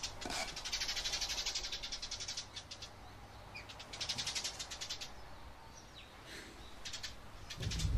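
Outdoor ambience of rapid, pulsing high-pitched chirps coming in spells of a second or two, heaviest in the first few seconds and thinning out later.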